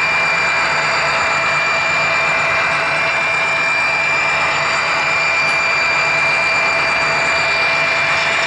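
HO scale model train running along the track, heard from a camera riding on it: a steady rolling, whirring noise with a constant high whine.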